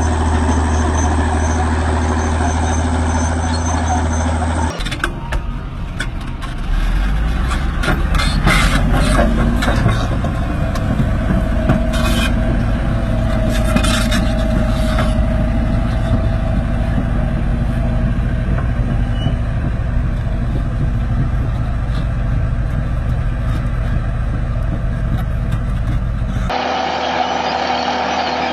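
Heavy diesel engines of bulldozers running steadily while hauling a deep plow through a field, with a few clanks around the middle.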